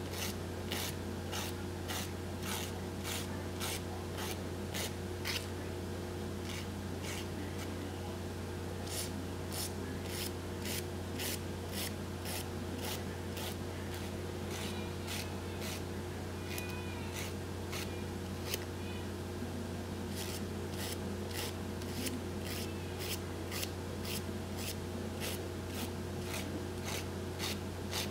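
Nail file rasping in quick short strokes, about two a second, filing off the overhang of a nail wrap at the fingertip, with a couple of short pauses between nails. A steady low hum runs underneath.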